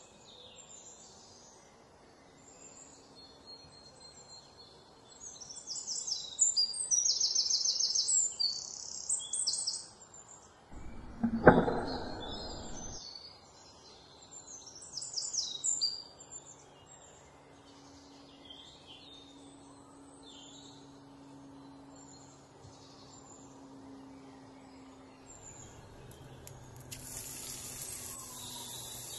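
Small birds chirping and twittering in the background, with a short loud rushing noise about halfway through. Near the end a steady hiss starts as chopped onions go into the hot pan and begin to sizzle.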